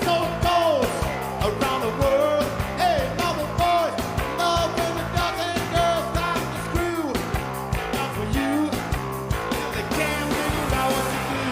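Live garage-rock band playing a fast song with a steady, driving drum beat, guitars and vocals, heard through the festival PA.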